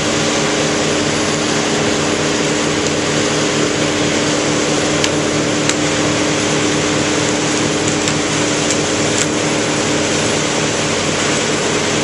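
Heavy machinery engine running steadily at constant speed, a loud drone with a steady whine. A few faint sharp ticks sound partway through.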